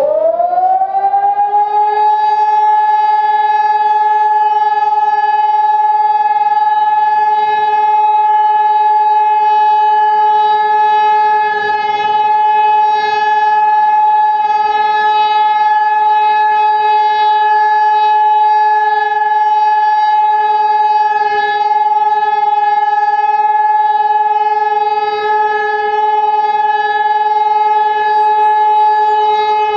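Hörmann ECN 2400 electronic high-power siren sounding, sliding quickly up in pitch and then holding one unbroken steady tone. This is the continuous-tone all-clear (Entwarnung) signal.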